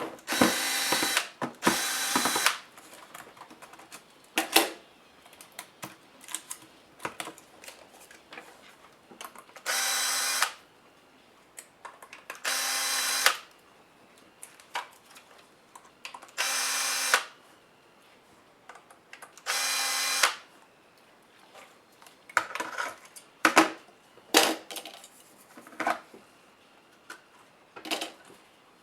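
A small electric screwdriver running in six short bursts of under a second each, backing screws out of a laptop case, with light clicks and taps of screws and plastic between the runs.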